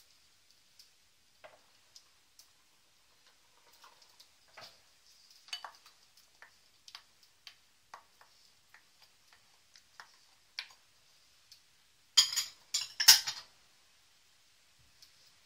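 Wooden spoon stirring in a stainless steel pot and scraping tomato purée out of a glass bowl, heard as scattered small clicks, taps and scrapes. A short run of louder knocks and clatter comes about twelve seconds in.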